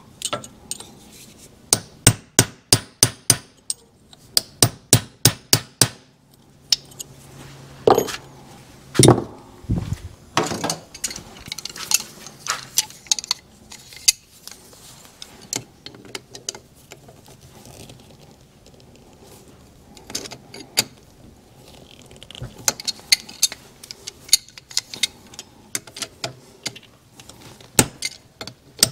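Hammer tapping a steel punch on the engine-sprocket nut of a Suzuki TS250 two-stroke engine. Quick runs of sharp metal taps fill the first six seconds, a few heavier blows land about eight to ten seconds in, and lighter clinks of tools on metal and scattered taps follow.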